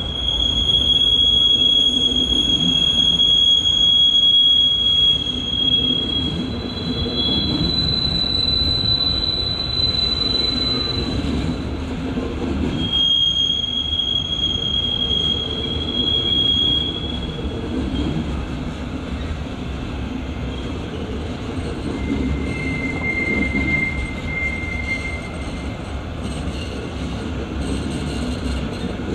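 Double-deck regional electric train rolling slowly past, its wheels squealing in high drawn-out tones that come and go and change pitch, over the steady rumble of the wheels on the rails.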